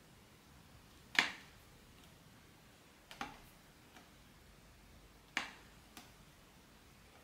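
Sharp hard-plastic clicks from the vinyl face of a large plush monster doll as hands press and adjust it: three clear clicks about two seconds apart, with a few fainter ones between.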